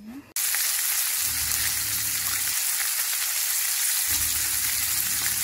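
Pieces of duck sizzling in butter in a frying pan: a steady, loud hiss that starts suddenly just after the beginning. A low hum comes in twice underneath.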